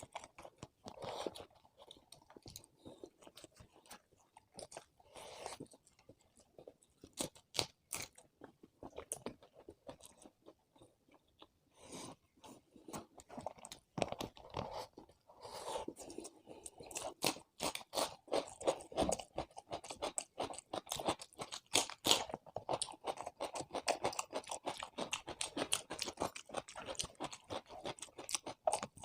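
A person chewing and crunching food close to the microphone, with sharp crackles and wet mouth clicks. The sounds are sparse at first and become dense and continuous about halfway through.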